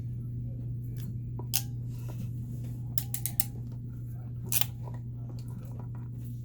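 Scattered small sharp clicks from a hand tool and the metal contacts of 30A Anderson connectors being handled on 12AWG wire, with a quick run of clicks in the middle, over a steady low hum.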